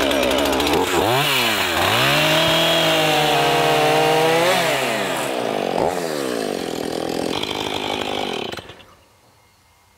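Petrol chainsaw cutting into a large gum tree stump. The engine revs up and down a few times, holds at high revs through the cut, then stops near the end.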